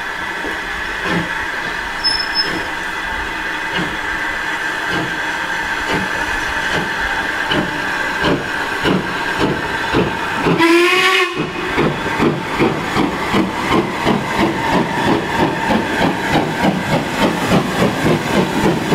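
LMS Ivatt 2MT 2-6-2 tank engine pulling away with a freight train: its exhaust beats start slow and quicken steadily over a constant hiss of steam. One short whistle blast sounds about eleven seconds in.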